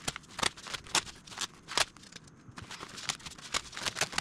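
Polyester peel ply being peeled off a cured epoxy fiberglass layup: an irregular run of short crackling rips, several a second, as the fabric pulls free of the resin.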